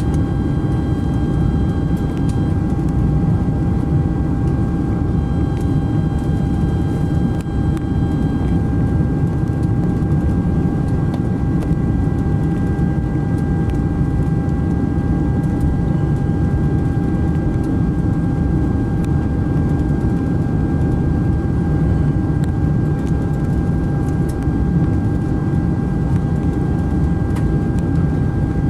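Steady roar of engine and airflow noise inside the cabin of a Boeing 747SP, heard on approach with the flaps extended, plus a thin steady high whine.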